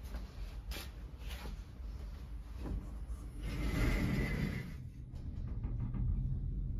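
Glass elevator car travelling between floors: a low steady rumble with a few light clicks, and a louder rushing noise for about a second midway.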